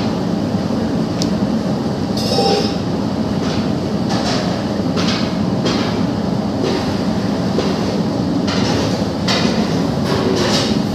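Hand squishing and pressing a wet chicken kebab mixture against a steel bowl in irregular strokes, over a loud, steady mechanical rumble.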